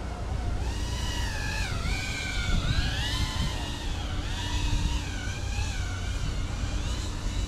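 FPV quadcopter's motors and propellers whining. The pitch glides up and down continuously as the throttle changes, over a low rumble.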